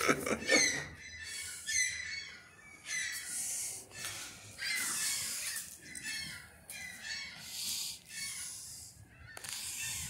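Gulls calling, a string of short cries that slur downward in pitch, loudest in the first second and then fainter and scattered, with several stretches of soft rushing noise in between.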